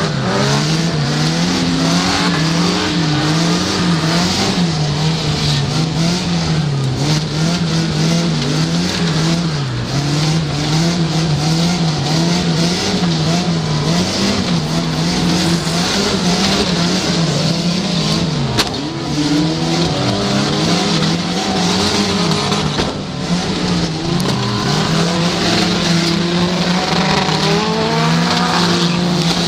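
Stock car engine heard from inside the caged cockpit while racing on a dirt track, its revs rising and dipping every couple of seconds, with other race cars' engines revving around it. A single sharp knock comes about two-thirds of the way through.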